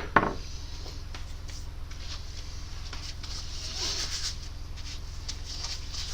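Faint clicks, ticks and light scraping of small metal parts and tools being handled, with a sharp click at the start, over a steady low hum.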